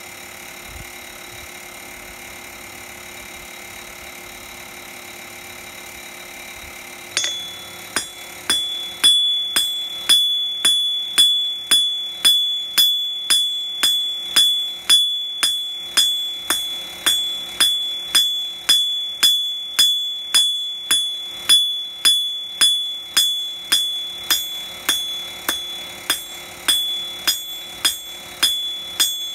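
Hand hammer forging a steel bar on an anvil: a steady rhythm of blows, about three every two seconds, beginning about seven seconds in, each with a bright ring from the anvil. Before the hammering there is only a steady hiss.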